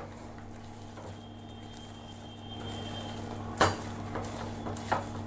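Thick Mysore pak batter of gram flour and ghee being stirred with a silicone spatula in a nonstick pan, with a faint steady sizzle under a low hum. The spatula scrapes and knocks against the pan twice, once a little past halfway and once near the end.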